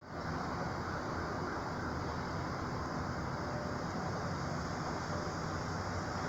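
Steady outdoor background rumble and hiss, with no separate events and no distinct siren tone standing out.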